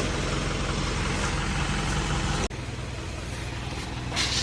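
A motor vehicle's engine running steadily, a low hum under a broad hiss. It breaks off abruptly for an instant about two and a half seconds in and then goes on a little quieter, with a brief hiss near the end.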